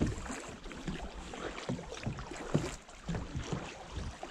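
Kayak paddling on a lake: paddle blades dipping and water splashing and lapping against the kayak hulls in irregular splashes, the sharpest about two and a half seconds in, over a low wind rumble on the microphone.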